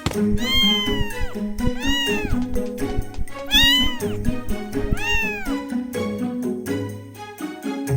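A cat meowing four times, each a rising-then-falling call, over background music with a steady beat.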